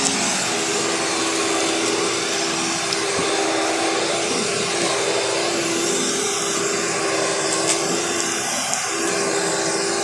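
Carpet Pro commercial upright vacuum cleaner running steadily while pushed over carpet: a constant motor hum and airflow rush, with a couple of brief clicks.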